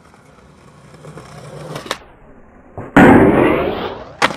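Skateboard wheels rolling on concrete, a sharp pop about two seconds in, then a loud metal scrape as the board grinds a metal handrail for about a second, ending in a sharp slap of landing near the end.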